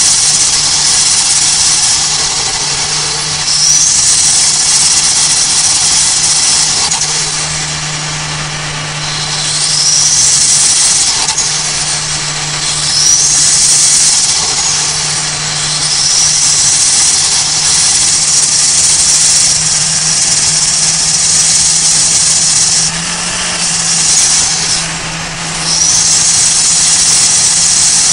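Turbocharged 1.5-litre Toyota Avanza Veloz under way at high speed: a steady engine drone under a loud, high turbo whistle that sweeps up in pitch again several times after brief dips in level as the turbo spools.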